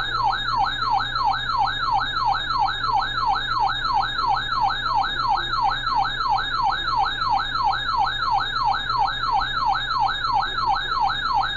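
Electronic siren-style emergency alert tone broadcast over the radio ahead of a severe thunderstorm warning. It is a loud, rapid falling sweep that repeats about three times a second without pause, like a yelping siren.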